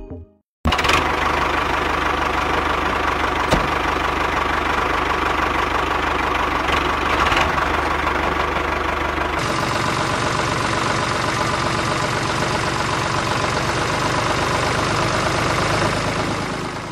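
Tractor engine running steadily, a recorded engine sound laid over the toy tractor as it drives; it cuts in abruptly about half a second in and shifts a little in tone about halfway through.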